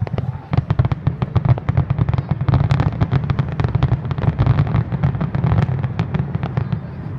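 Aerial fireworks going off: a rapid, dense run of sharp crackling bangs over a low rumble, easing off about six and a half seconds in.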